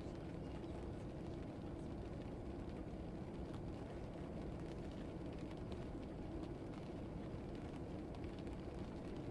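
Steady low rumble of a classroom ambience track, with a few faint scattered clicks.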